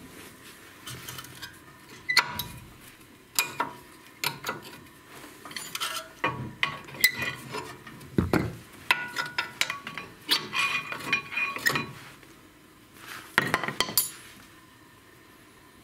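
Old front brake pads being worked out of a caliper carrier by hand: irregular metallic clinks and clatters as the steel-backed pads knock against the carrier and each other, busiest in the second half, then going quiet for the last couple of seconds.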